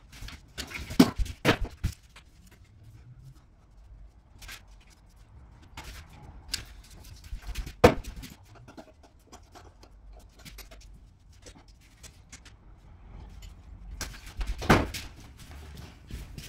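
Irregular knocks, clatters and bangs of furniture and wooden pieces being handled and moved out of a room. A few sharp bangs stand out, one about a second in, one about halfway and one near the end.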